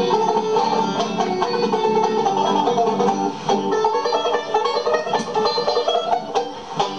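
Small string band of two banjos, tenor guitar and upright string bass playing a fast ragtime tune, the banjos picking quick runs over the plucked bass.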